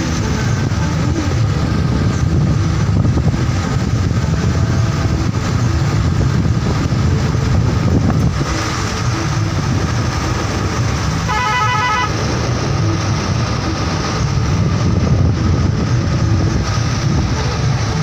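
Steady running noise of a road vehicle on the move. About two-thirds of the way in, a vehicle horn sounds once for about a second as a rapidly pulsing beep.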